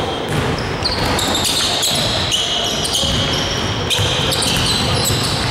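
Basketball players' sneakers squeaking again and again on a hardwood court, each squeak a short high tone, with a ball being dribbled.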